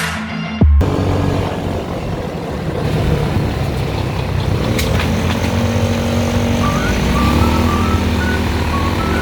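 Background music cuts off under a second in, giving way to a motor vehicle's engine running steadily. There is a single click about five seconds in, and from about two-thirds through a run of short high beeps that step up and down in pitch.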